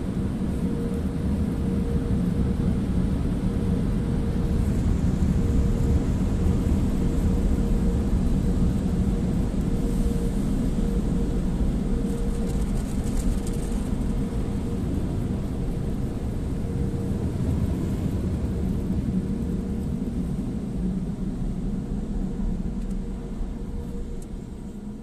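Automatic tunnel car wash machinery heard from inside the car: a steady low roar with a faint steady hum, fading near the end as the car leaves the wash.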